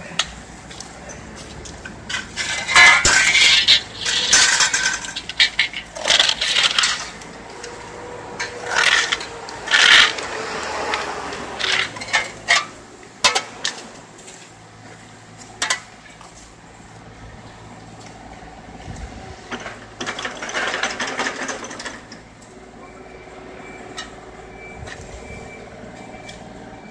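Steel shovels scraping and clanking in soil, gravel and against metal, in irregular bursts of sharp metallic clinks and scrapes, over a steady low engine hum.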